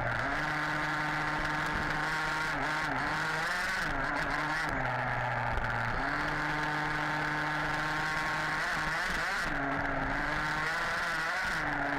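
HPI Baja 5B RC buggy's small two-stroke petrol engine running hard, held at high revs for a second or two at a time, with the pitch dropping briefly and climbing again several times as the throttle is eased and reopened.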